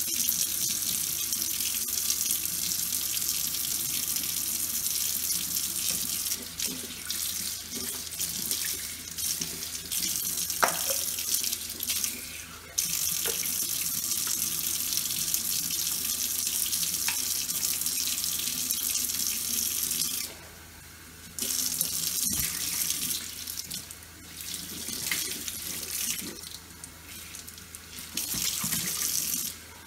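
Kitchen tap running into a sink while plastic breast pump parts and a bottle brush are rinsed under the stream, the splashing changing as hands and parts move through the flow. The water sound drops away briefly about two-thirds of the way through.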